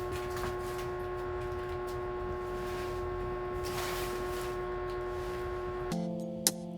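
A steady hum from a small appliance or motor, with fixed tones over a low rumble. About six seconds in it gives way to a different steady tone and a sharp click.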